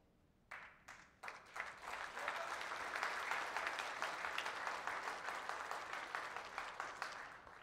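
Audience applauding: a few scattered claps about half a second in, swelling into dense applause within a couple of seconds, then tapering off toward the end.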